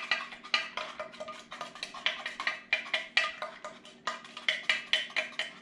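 A metal utensil rapidly beating against the inside of a stainless steel cup, whipping instant coffee, sugar and water into dalgona coffee foam by hand: quick ringing metallic clinks, about four to five a second.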